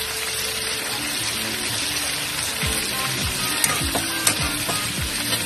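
Chicken pieces sizzling in a stainless steel pan, stirred with a metal spatula, with a couple of sharp clicks of the spatula against the pan about midway.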